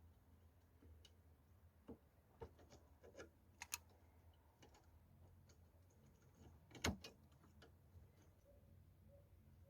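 Mostly quiet, with scattered light metallic clicks and taps as small drum-brake parts and tools are handled, and one sharper knock about seven seconds in.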